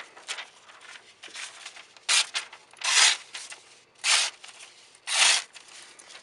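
A handmade 1084 steel balisong blade making slicing cuts, four main strokes each about half a second long with lighter scrapes between. The edge is not very sharp and cuts with effort.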